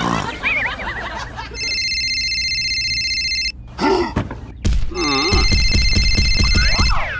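Electronic telephone ringtone sound effect, ringing twice: a steady ring, then a fast trilling ring near the end. A wavering cartoon snore-and-whistle effect comes in the first second and a half, and short grunting vocal effects come between the rings.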